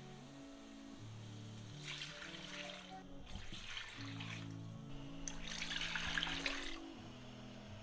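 Stock being poured from a glass measuring jug into a pan of cooked mutton, splashing in bursts, loudest about five and a half seconds in. A humming vocal nasheed plays over it as background music.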